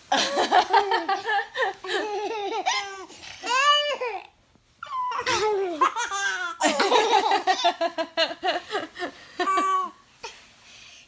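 A baby laughing hard in repeated belly-laugh fits, with one long rising-and-falling laugh about three and a half seconds in, a brief pause, then more laughter that dies down near the end.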